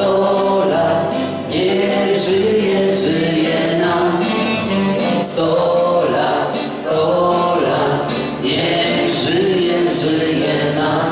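A group of guests singing a Polish birthday toast song together in chorus, many voices at once and loud throughout.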